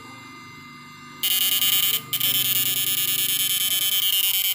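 Homemade two-MOSFET inverter's high-voltage output arcing under a 1500 W load: a faint steady hum and whine, then about a second in a loud electric buzz starts, drops out briefly near two seconds and comes back steady.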